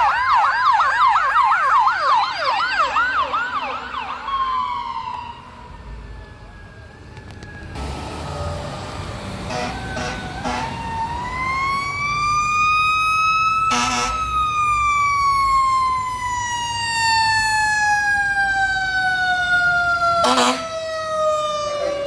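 Fire engine sirens. A siren yelps fast, falls off and stops about four seconds in. Then, about ten seconds in, a mechanical-style siren winds up to a peak and coasts slowly down in pitch, with short horn blasts about ten, fourteen and twenty seconds in, as the pumper approaches.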